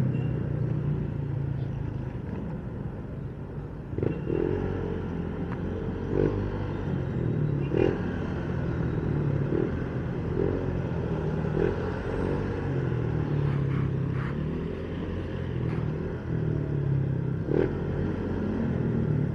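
Motorcycle engine running at low speed in slow traffic, a steady low hum that wavers slightly, with the noise of surrounding road traffic and a few faint clicks.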